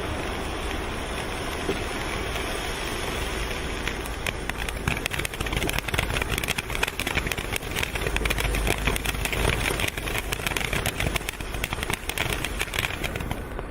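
Kimbolton Blizzard low-noise firework fountain spraying with a steady rushing hiss. From about four seconds in, dense crackling joins it, and the fountain cuts off suddenly near the end as it burns out.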